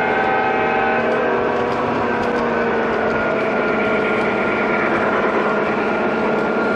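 Several G-scale model trains running together on track: a steady rolling rattle of wheels on rails, with the hum of their electric motors.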